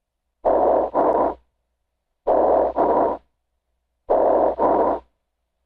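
Bronchial breath sounds from a lung consolidated by pneumonia, heard through a stethoscope. There are three breaths, each a hollow, tubular inhale and exhale of about equal length with a brief pause between them, audible in both phases of the breath.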